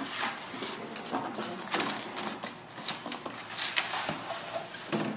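Empty plastic jug being bitten, batted and pushed across a hardwood floor by a puppy: irregular hollow plastic knocks, crinkles and scrapes.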